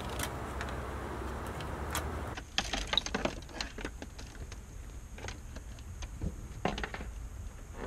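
Scattered small clicks and rattles of car wiring and plastic connectors being handled behind a dashboard. For the first two seconds or so a steady background hiss with a few clicks runs underneath, then stops.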